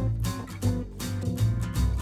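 Background music: acoustic guitar melody over a bass line with a steady beat.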